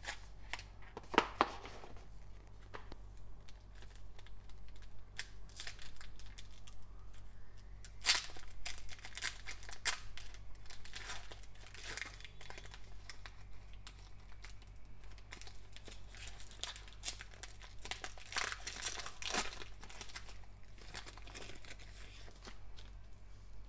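Foil wrapper of a Panini Court Kings basketball card pack being torn open and crinkled in gloved hands: irregular ripping and crackling that comes in several louder spells.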